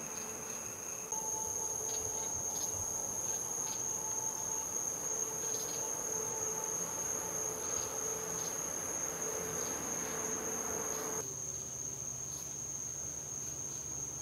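Crickets chirping in a steady high insect chorus, over a faint low hum. The background changes abruptly about a second in and again near the end.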